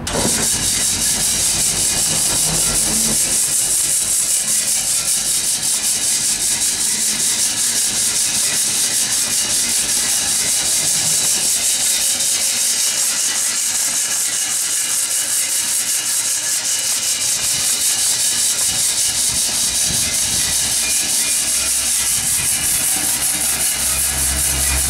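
WPG-3 stick polishing machine switched on and running: its electric motor drives the trough in a loud, steady rushing, hiss-like rattle that starts abruptly and holds an even level.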